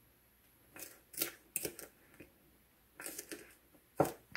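Red plastic measuring spoon stirring and scraping cinnamon sugar in a small cup: a string of short, soft scrapes and taps, the loudest about four seconds in.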